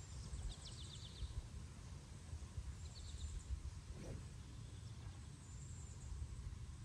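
Outdoor ambience: a low, uneven rumble of wind on the microphone, with small birds chirping in quick trills about half a second in and again about three seconds in.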